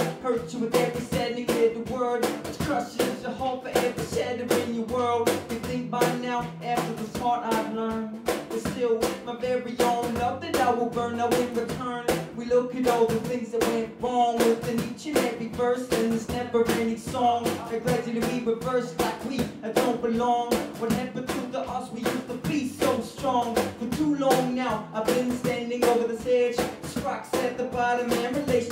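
Live acoustic guitar strumming under a man's voice, with drum-like beats keeping a steady rhythm.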